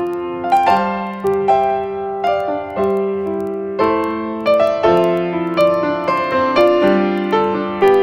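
Instrumental music on a piano-like keyboard: a melody over sustained chords, with notes struck about once or twice a second and fading after each attack.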